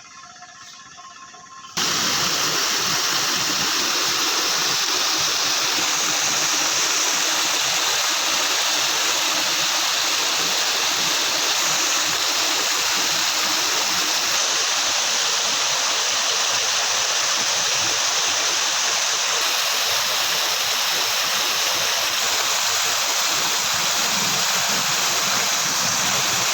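Floodwater rushing steadily through a rain-washed breach in a road. The rushing starts abruptly about two seconds in, after a quiet moment.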